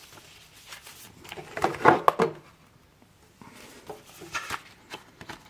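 A cardboard box set and a paper booklet being handled on a table: a cluster of knocks and rustles about two seconds in, the loudest part, then softer rustling about four seconds in.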